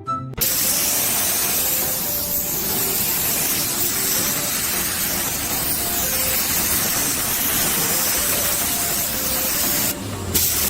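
A loud, steady hissing spray that starts abruptly about half a second in and cuts off near the end, with faint music underneath.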